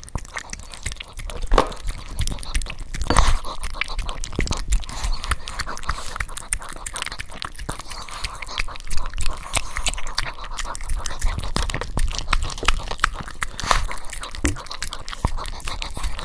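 Small dog chewing and crunching a treat close to the microphone, a busy run of quick wet clicks and crunches with a few louder snaps.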